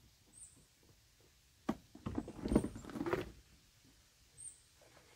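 Plastic top cowling of a Suzuki 2.5 hp four-stroke outboard being unlatched and lifted off: a sharp click, then a second or so of plastic knocking and rattling, and a softer knock near the end.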